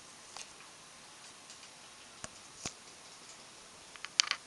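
A few sharp, sparse clicks, then a louder quick cluster of clicks just after four seconds in.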